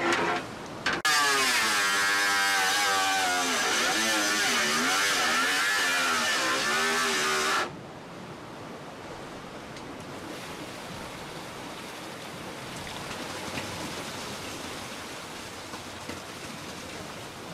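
Handheld angle grinder cutting carbon fibre, its whine wavering up and down in pitch as the disc loads and unloads, stopping abruptly about eight seconds in. After that a steady hiss of water and wind from the yacht sailing at speed.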